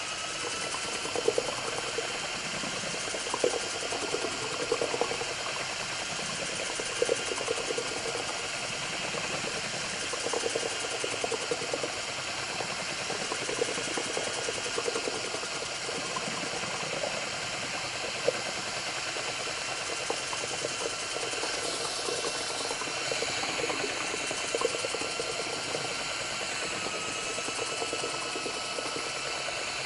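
Electric drill with a mixing paddle running at a moderate, steady speed, stirring two-part water-based epoxy primer in a bucket: a steady motor whine with small scattered knocks from the paddle in the bucket.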